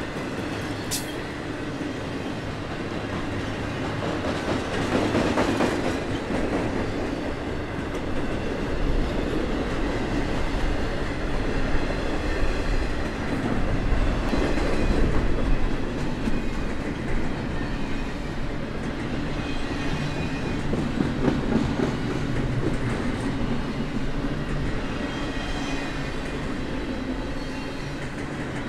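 Intermodal freight train's double-stack well cars rolling past at speed: a steady rumble and rattle with wheels clicking over the rails, swelling and easing as the cars go by.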